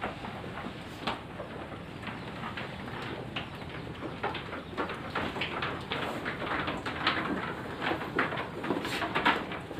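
Goats moving and feeding in a raised wooden slatted pen: irregular clicks and knocks that grow busier and louder in the second half.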